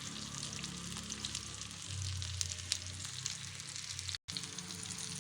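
Oil sizzling and crackling in a pan as stuffed baby brinjals fry, the pan being turned over mid-fry. The sound drops out for a split second about four seconds in.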